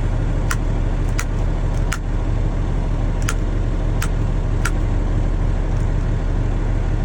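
International water truck's engine idling steadily. Six short, sharp clicks sound over it in two groups of three, about two-thirds of a second apart.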